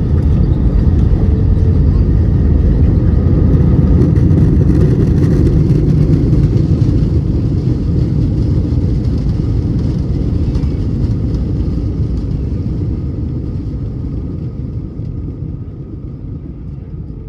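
Loud low rumble of a jet airliner's engines and wheels during the landing rollout, heard from inside the cabin. It eases off steadily over the last several seconds as the aircraft slows.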